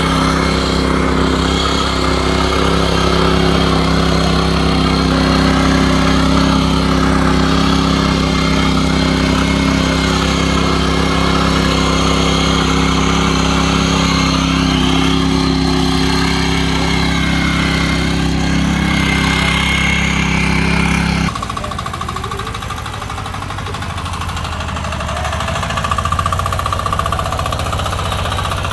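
A small power tiller's engine running steadily. About 21 seconds in, the sound cuts abruptly to a quieter engine sound with a different tone, which grows louder a few seconds later.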